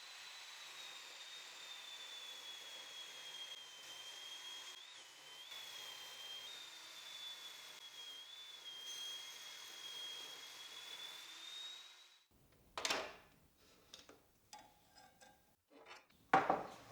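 Table saw ripping a cedar board, heard faintly: a steady high motor whine whose pitch sags a little as the blade works through the wood and climbs back as the cut finishes. The saw then winds down, followed by two short knocks of wood being handled near the end.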